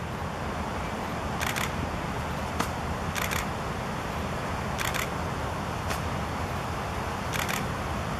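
Camera shutters firing in short bursts, four bursts roughly every two seconds with a couple of single clicks between them, over a steady low rumble.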